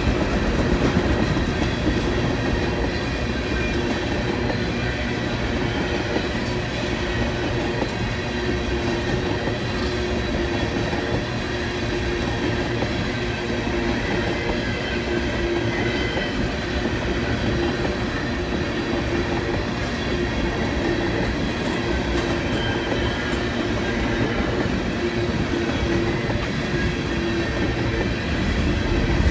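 Long freight train of empty ethanol tank cars rolling past: a steady rumble and clatter of steel wheels on the rails, unbroken throughout.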